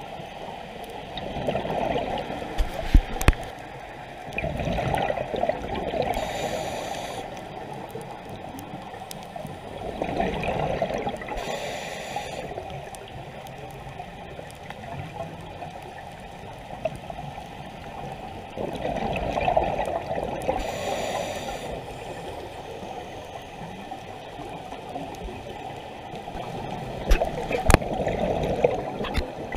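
Scuba diver breathing through a regulator underwater: four breaths, each a rush of gurgling exhaled bubbles followed by a short hiss of inhaling. A few sharp clicks, the loudest near the start and near the end.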